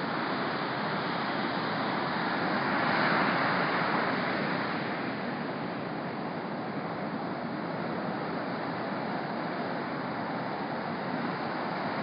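Ocean surf breaking on a beach: a steady wash of waves, with one wave crashing louder about three seconds in.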